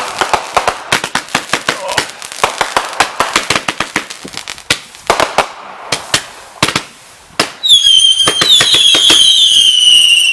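Two boxes of consumer fireworks going off: a rapid, irregular string of loud cracks and pops, then from about eight seconds in several shrill whistles, each slightly falling in pitch, over further bangs, cutting off at the end.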